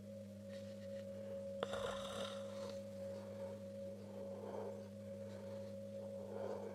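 Faint steady background hum made of a few constant tones, with a single soft click and a brief rustle about a second and a half in.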